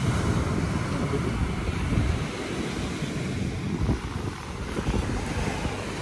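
Wind buffeting the phone's microphone: a loud, uneven low rumble.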